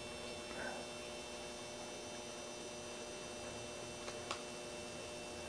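Steady electrical hum with a faint hiss under it, and two faint ticks about four seconds in.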